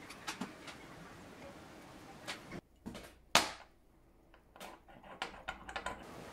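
Small clicks and taps of watchmaking tools and parts being handled at a bench: a few light clicks near the start, one sharp louder click about a third of the way in, and a quick run of small clicks near the end.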